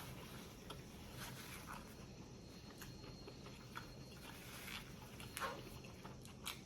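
Faint, irregular crunching and smacking of someone biting and chewing a toasted grinder sandwich close to the microphone, over a steady low background hum.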